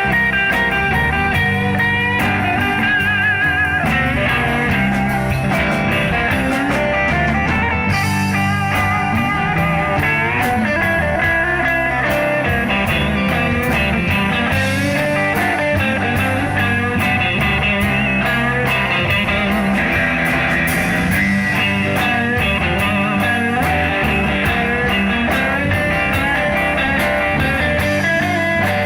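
Instrumental break of a slow blues-rock song: a lead guitar solo with bent, wavering notes over a bass line and drums.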